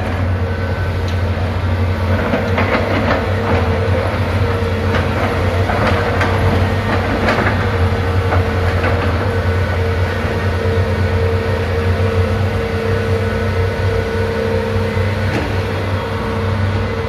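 Heavy truck or machinery engine running steadily at a constant pitch, with several metallic clanks and rattles in the first half.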